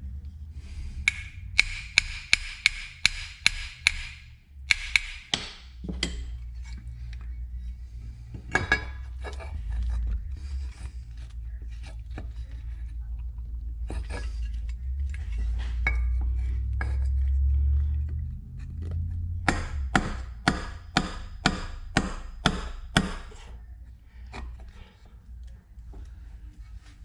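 Hammer tapping a punch to drive a small pin through the spring of a Rolls-Royce Silver Shadow oil filler cap. There is a quick run of about seven sharp taps, a few single taps, then another run of about eight taps near the end.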